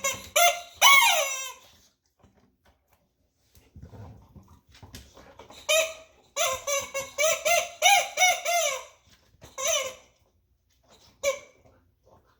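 Rubber chicken squeaky toy squawking as a boxer puppy squeezes it in his jaws. A quick run of squawks comes at the start, a longer string follows about six to nine seconds in, and single squawks come after it. Softer thuds of the dog handling the toy fall in between.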